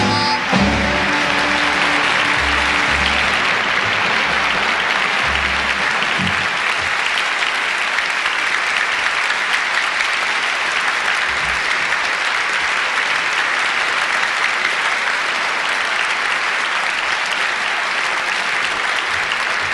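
Large theatre audience applauding steadily at the end of a song, as the band's last notes stop right at the start. Several low thumps sound in the first six seconds.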